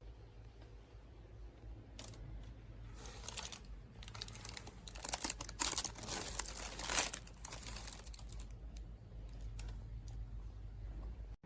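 Handling noises: crinkling rustles and irregular clicks, densest in the middle, over a low steady hum.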